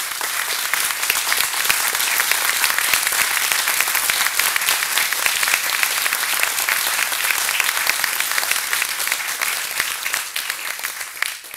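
Audience applauding: a dense, steady clapping from many hands that dies away quickly near the end.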